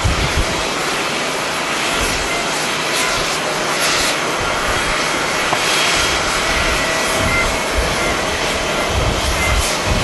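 Twin-engine jet airliner landing and rolling out along the runway, its engines giving a steady rushing roar that brightens briefly a few times. Low rumbling gusts of wind hit the microphone at the start and near the end.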